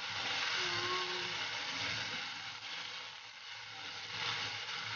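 Chicken pieces sizzling in a pan as they are stirred. The water has cooked off and they are frying in their own rendered fat. The sizzle eases a little about three seconds in, then picks up again.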